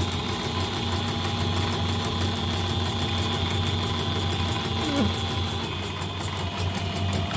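Yoko portable embroidery machine stitching a design with its cover off: a steady motor hum under a rapid, even needle rhythm. It is running normally, its sensors now all checking out after a 'system self check failed' fault.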